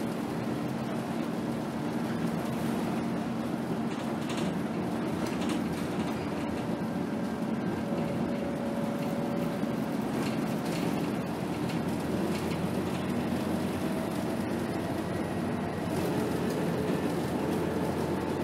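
2010 Scania K280 city bus's diesel engine and road noise heard from inside the passenger cabin while the bus drives, a steady hum with scattered light rattles. The engine note shifts higher near the end.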